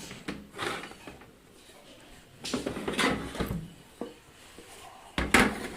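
LG optical CD drive being slid out of a desktop PC case's drive bay: sheet metal scraping and rattling in a few separate pulls, with a louder clatter near the end.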